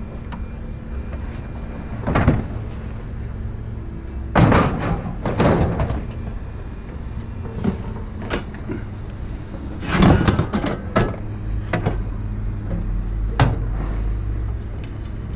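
Several sudden bangs and longer scraping clatters of objects being handled, the loudest around the middle, over the steady hum of an idling vehicle engine.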